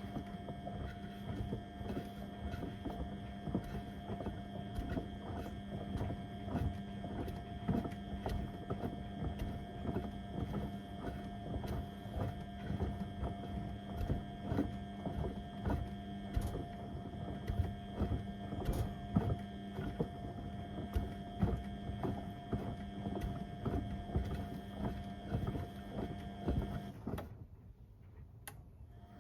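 Beko WM74135 washing machine tumbling a load of door mats: a steady motor hum with frequent irregular thuds and knocks from the heavy mats in the drum. About 27 seconds in the motor stops briefly, then the hum resumes.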